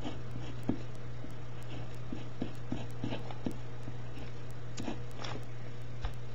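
Pen writing on paper by hand: a string of short scratches and taps, one for each stroke, over a steady low hum.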